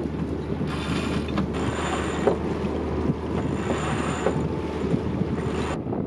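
Wind and water noise aboard a sailboat under way, rising and falling in surges about a second long over a steady low rumble. The hiss cuts off abruptly near the end.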